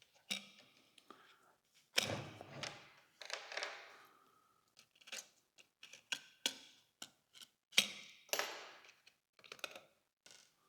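Irregular small clicks and taps of a precision screwdriver and tiny screws against a mirrorless camera's body while it is being unscrewed.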